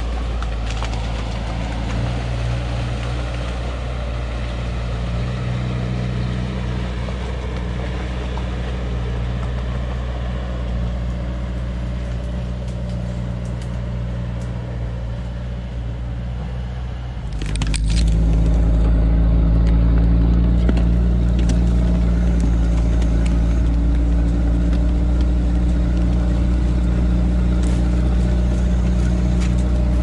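A Sherp amphibious ATV's Kubota four-cylinder turbodiesel runs at a steady pitch. About halfway through, the sound cuts to a louder, closer engine note that stays steady.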